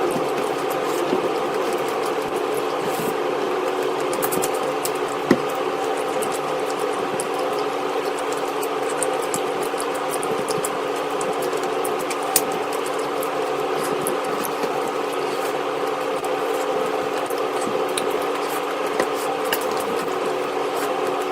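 A steady motor hum made of several held tones, with scattered short clicks of chewing and eating coming and going over it.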